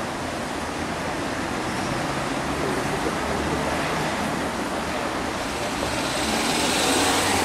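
City street traffic: cars passing in a steady noise that swells near the end as cars come close.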